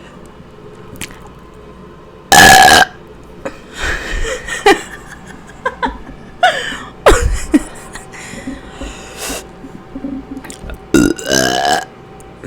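A woman burping on command, a string of separate loud burps: the loudest about two seconds in, several shorter ones through the middle, and a long drawn-out one near the end.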